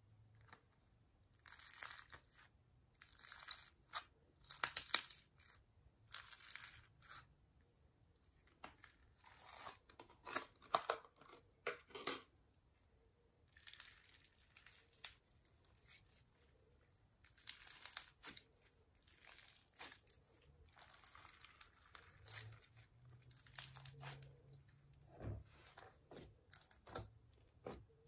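Slime being stretched, squeezed and pressed by hand, including pink foam-bead slime (floam): spells of crackling, crinkling pops and crunches a few seconds long, with short lulls between them.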